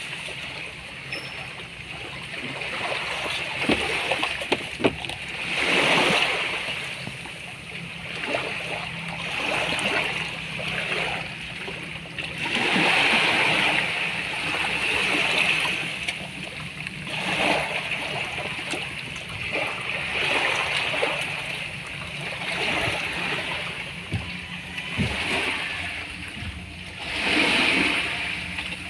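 Small waves washing and lapping at the water's edge, the hiss swelling and fading every couple of seconds. There are a few sharp clicks about four to five seconds in.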